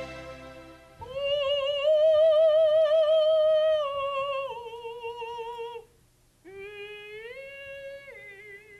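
A woman's voice singing a slow, wordless melody alone, holding long notes with wide vibrato and sliding smoothly from one pitch to the next, with a short break about six seconds in. Soft instrumental music fades out in the first second.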